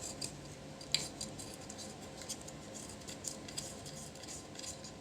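Faint small metallic clicks and ticks of hand tools being handled on a circuit board, with one sharper click about a second in.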